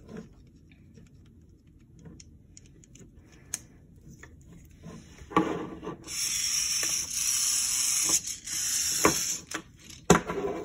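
VEX IQ smart motor driving a plastic gear along a blue linear-motion rack, a steady noisy whirr lasting about three and a half seconds from about six seconds in. Before it, light clicks and a knock of the plastic parts being handled, and another sharp knock near the end.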